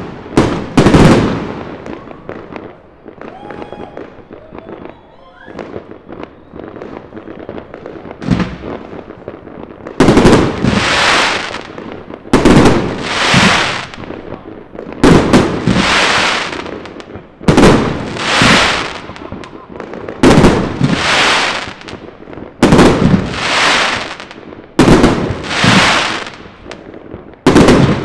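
Fireworks going off: a few bangs and crackles at the start, a quieter stretch, then from about ten seconds in a regular run of shots roughly every two and a half seconds, each a sharp bang trailing off in about a second of crackling hiss.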